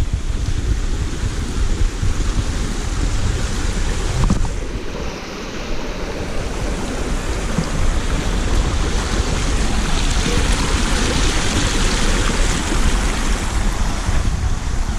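Wind buffeting the microphone with a low rumble, over the rush of a shallow stream running over rocks. The water grows louder a little past the middle.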